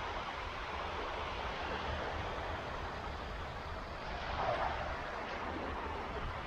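Small waves breaking and washing up on a sandy beach: a steady hiss of surf with a low rumble underneath and one slightly louder wash about four and a half seconds in.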